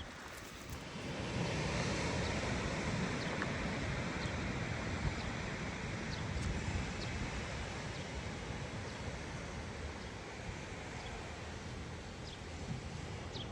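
Ocean surf washing onto the beach, with wind on the microphone. A steady rushing that swells about a second in, then slowly eases.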